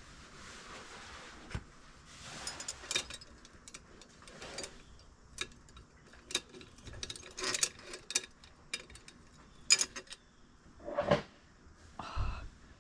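Blown-glass flower stems clinking against one another and against the ceramic pitcher they stand in as they are drawn out and handled: a run of sharp, irregular clinks and taps, after a soft rustle at first.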